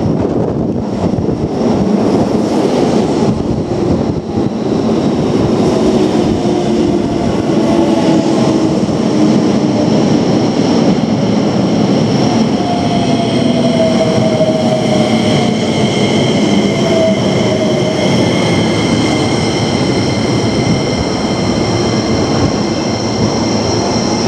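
Keio Line electric train running: a steady rumble of wheels on the rails. About halfway through, a slowly falling whine and several steady high-pitched tones come in over the rumble.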